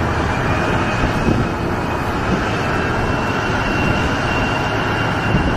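Steady vehicle engine noise: a low rumble with a faint high whine that rises slightly.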